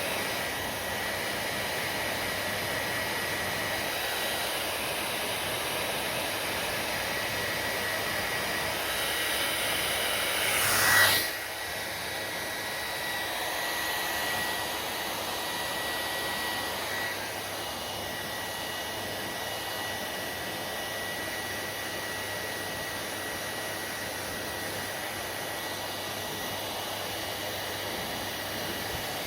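Hair dryer running: a steady blowing hiss with a faint high whistle. About eleven seconds in it swells to its loudest, then drops suddenly and runs on a little quieter.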